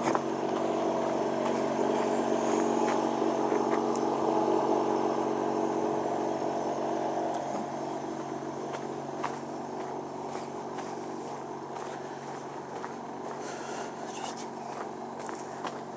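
A steady engine drone with several held tones, loudest in the first few seconds and fading away after about seven seconds, with footsteps on a gravel path.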